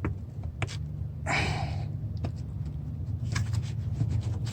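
Clicks and light knocks of hands working the electrical connector onto the throttle body, over a steady low hum, with a short hiss about a second in.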